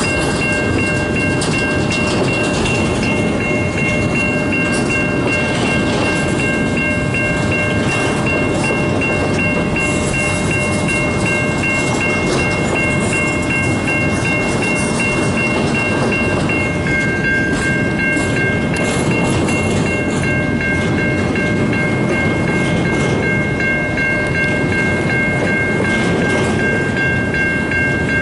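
Freight train cars rolling past at close range: a steady rumble of wheels on rail. Several steady high-pitched tones ring over it almost throughout.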